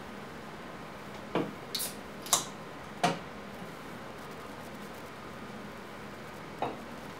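Five short clinks and knocks of objects being handled, four close together in the first half and one more near the end, over a steady hiss.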